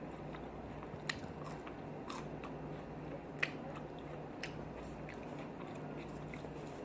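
Close-miked chewing and lip smacking of a person eating a cheeseburger, with a few sharp, separate mouth clicks over a faint steady hum.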